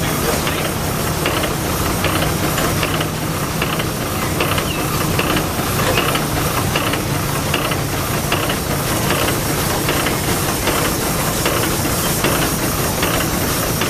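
Advance-Rumely steam traction engine running in place: a steady hiss of steam over a low mechanical hum, with a regular clicking from the moving engine parts.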